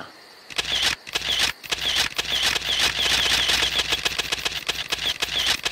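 Rainforest ambience: insects calling in a fast, repeating high chirp over a steady noisy hiss with crackles. It starts about half a second in and drops out briefly twice early on.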